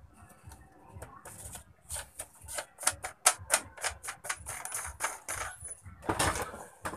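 Clicks and rattles from an electric stand fan being taken apart by hand: a quick run of sharp clicks in the middle, then a louder rattle as the wire front guard comes off near the end.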